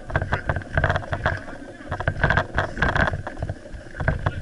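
Uneven rumbling and rubbing noise on the microphone of a camera carried while walking, with scattered short knocks.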